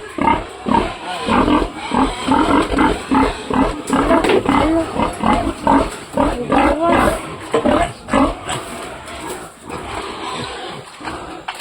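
Pigs grunting and squealing in many short, overlapping calls, which thin out after about eight seconds.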